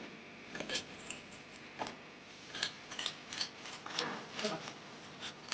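Hand tools and metal engine parts being handled during engine assembly: a dozen or so irregular, sharp metallic clicks and clinks.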